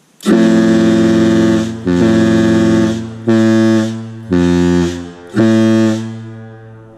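Airchime air horns blown in five blasts, the first the longest and the rest short, each sounding several notes at once as a chord. After the last blast the sound trails off over about a second in echo.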